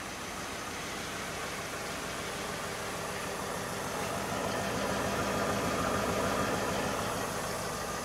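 Brushed DC electric motor, mounted to the transmission through a steel adapter plate, running free and unloaded with a steady mechanical hum and whir. It grows a little louder about midway, then settles.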